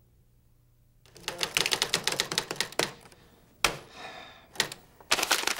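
Typewriter being typed on, starting about a second in: a quick run of key clacks, a pause, one loud single clack followed by a short sliding sound, then fast typing again near the end.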